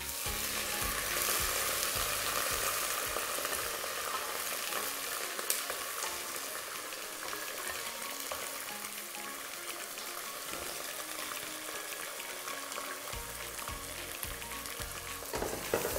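Boiled beef pieces sizzling in hot oil with browned onions in a cooking pot, stirred with a spoon. The sizzle is strongest in the first few seconds, just after the meat goes in, then settles into a steadier frying hiss.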